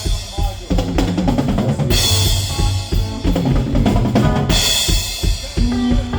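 Full drum kit played through the PA during a sound check: a steady groove of kick and snare hits, with a crash cymbal struck about every two and a half seconds.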